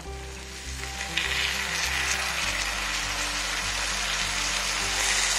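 Melted jaggery and ghee sizzling in a frying pan as cooked green gram is tipped in; the hiss grows louder about a second in. Background music with held notes plays throughout.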